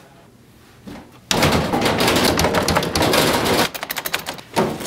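Snack vending machine's mechanism clattering: a loud, dense run of rapid clicks lasting about two and a half seconds, then a few separate clicks and a short knock near the end.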